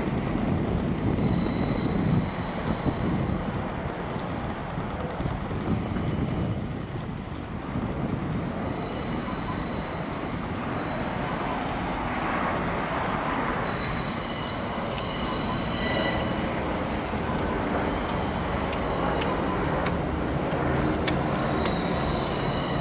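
Propeller engines of two Boeing Stearman biplanes and a de Havilland Chipmunk droning steadily overhead in formation, a continuous rumble. Wind buffets the microphone in the first few seconds.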